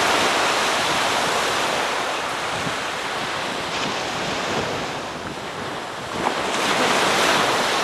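Small surf waves washing onto a sandy beach, with wind rumbling on the microphone. The wash swells near the start and again about six and a half seconds in as a wave breaks.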